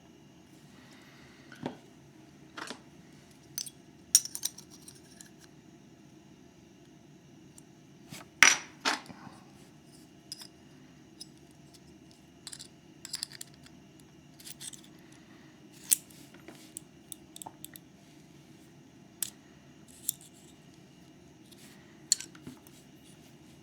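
Small metal clicks and clinks at irregular intervals as a Mauer MLS euro-profile lock cylinder and small tools are handled while the lock is taken apart. The loudest is a close pair of clicks about eight and a half seconds in.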